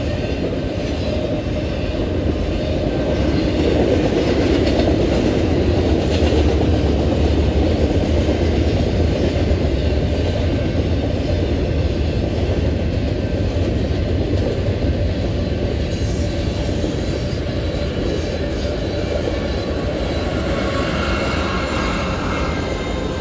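Intermodal freight train rolling past at speed, a steady rumble of wheels on rail with some clacking over the joints. Near the end a BNSF diesel locomotive comes by and adds its engine sound.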